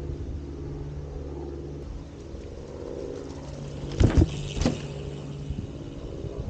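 A mountain bike's wheels thud twice, about half a second apart, as it drops off a wooden board: front wheel first, then rear. A steady low mechanical hum runs under it.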